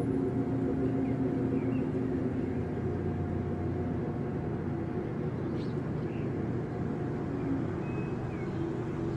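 Steady low droning hum with a few held tones over outdoor background noise, the kind of drone reported as a strange sound in the sky. A few faint short chirps come in about six and eight seconds in.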